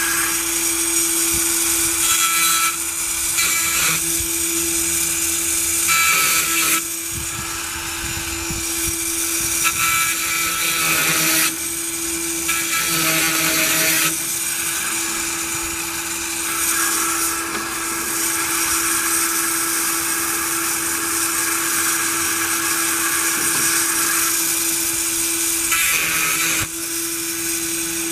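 Granberg bar-mounted electric chain sharpener running with a steady motor whine while its grinding stone works the cutters of a rip chain. The grinding noise grows and fades several times as the stone is moved onto and off the teeth.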